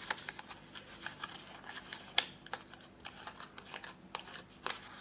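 Hands handling card stock and a die-cut paper twig: soft paper rustles and scattered light taps and clicks, with two sharper clicks close together a little over two seconds in.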